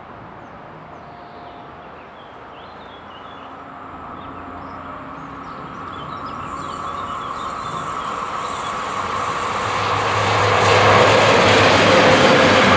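Electric-hauled freight train of silo wagons approaching and passing, its running noise growing steadily louder until it is close by and loudest near the end.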